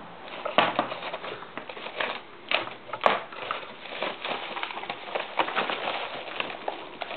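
Plastic bubble wrap crinkling and rustling as hands grab and turn a wrapped computer power supply, in irregular crackles that start about half a second in.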